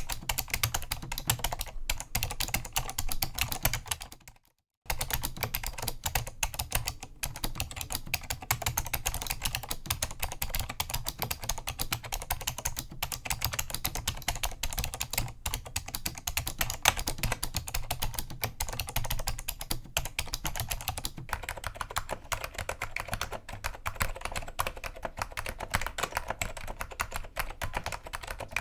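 Fast, continuous typing on an Apple Extended Keyboard II with Alps SKCM Cream Damped switches: a dense stream of key clacks, broken by a short pause about four seconds in.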